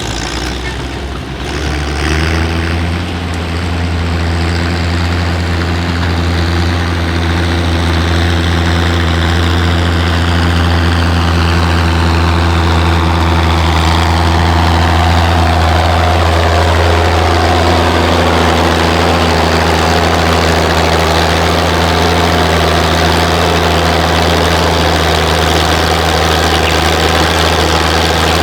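Tractor engine running loud and steady at a constant pitch, coming up to full volume about two seconds in.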